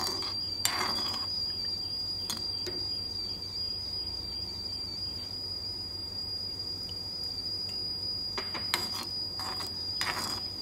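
A cricket's steady, unbroken high-pitched trill runs throughout. A few light clinks from a spoon stirring a watery tempering in a metal pan come near the start and in the last couple of seconds.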